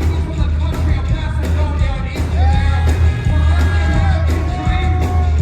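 Live rock band playing loud, with heavy bass and steady drum hits under a singer holding long, drawn-out notes.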